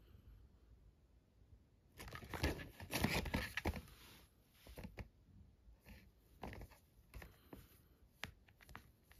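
Handling noise of a coiled plastic PLC programming cable being moved in the hands: a spell of rustling and crackling about two to four seconds in, then scattered small clicks and taps.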